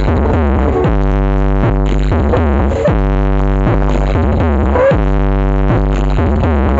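Loud electronic dance remix with heavy, sustained synth bass and held chords under a sliding synth melody, played through a large 'cek sound' parade sound system.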